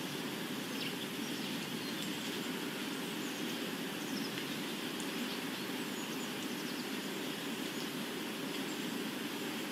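Steady ambient noise bed: an even low rumble with a hiss above it, and a few faint, short high chirps or crackles scattered through.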